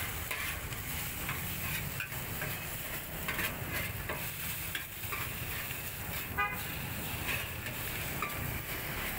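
Fried noodles sizzling in a large wok as a spatula scrapes and tosses them against the pan in repeated strokes. A short horn toot sounds about six seconds in.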